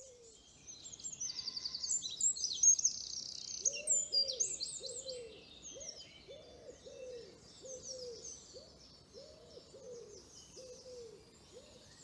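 Songbirds chirping and trilling, busiest in the first few seconds. From about four seconds in, a low call repeats roughly twice a second.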